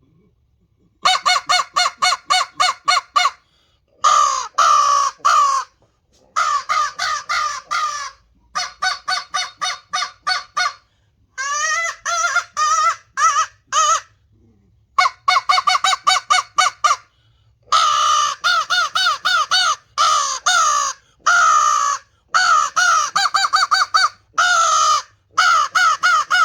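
Mouth-blown cherry wood crow call sounding runs of quick caws, about four or five notes a second, broken by short pauses. The tone is mellow and gargly, meant to mimic a real crow.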